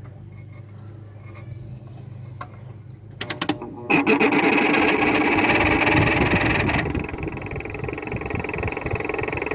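A 2000 Whirlpool window air conditioner, its fan motor bearings worn out. There is a low steady hum, a few clicks about three seconds in, and then about a second later the unit comes on loud, with a squeaky, high-pitched running noise from the fan that continues.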